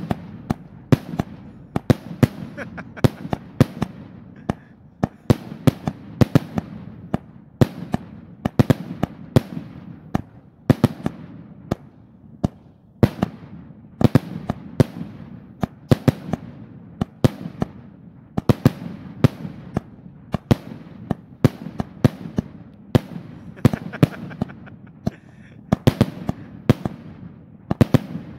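Aerial fireworks going off shot after shot: sharp reports come several times a second, each with a short ringing tail, in an unbroken string.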